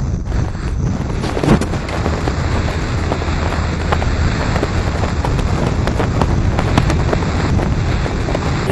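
Wind buffeting the microphone during a descent under an open parachute: a steady, loud rumble with scattered crackles.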